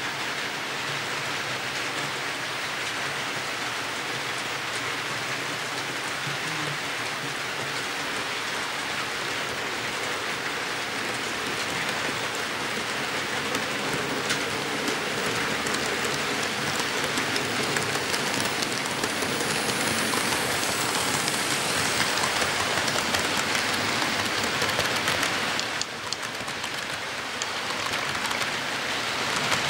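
HO scale model freight train rolling along the layout track, a steady hiss of wheels on rail. It grows louder about halfway through as the train comes near and its cars pass close by, then dips briefly near the end.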